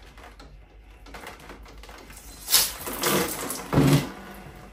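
Spanner working the drain plug of a magnetic central-heating filter with small metallic clicks, then water from the pressurised heating system bursting out of the drain in a sudden hissing rush about two and a half seconds in. A short voiced sound near the end.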